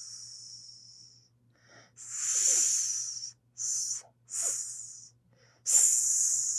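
Snake hissing in a series of separate hisses: one fading out at the start, a long hiss about two seconds in, two short ones, then a loud hiss near the end that carries on.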